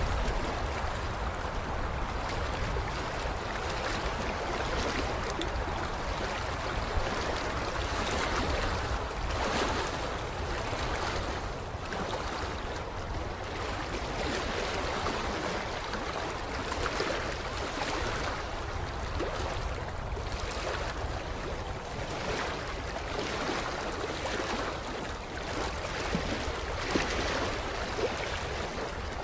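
Creek water lapping at the shoreline: a steady wash of small waves with soft, irregular splashes.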